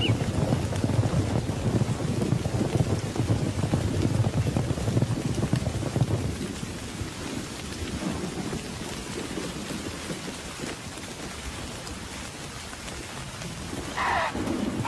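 Thunderstorm: rain falling steadily with a deep rolling rumble of thunder, heaviest in the first half and easing off after the middle. A short high whine sounds near the end.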